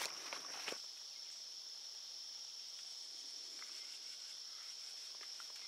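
Steady, high-pitched chorus of insects droning, with a couple of faint clicks in the first second.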